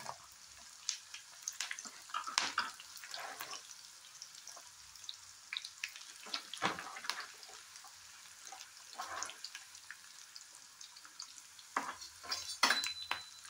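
Sliced onions, garlic, dried red chillies and curry leaves sautéing in hot sesame oil in a kadai: a steady sizzle broken by irregular pops and crackles of spattering oil.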